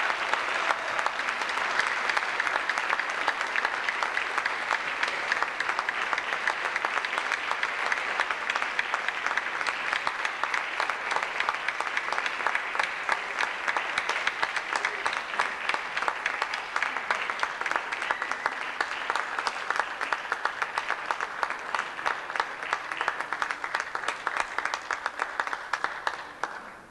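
Long round of applause from an audience, a dense steady patter of many hands clapping that thins out toward the end and stops.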